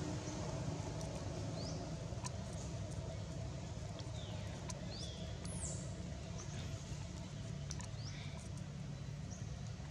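Outdoor ambience: a steady low rumble with short, high bird chirps, quick rising or falling notes, every second or two.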